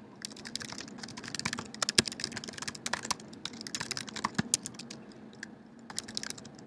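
Typing on a computer keyboard: quick runs of key clicks with a brief lull about five seconds in.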